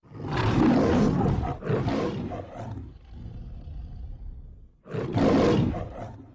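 Two long, rough roars. The first runs about two and a half seconds with a brief break partway, and a fainter tail follows it. The second starts about five seconds in.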